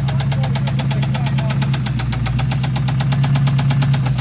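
Ford Mustang SN95's 4.6-litre two-valve V8 running steadily with a rapid, even knocking, about ten knocks a second: the sign of a rod knock from a worn connecting-rod bearing.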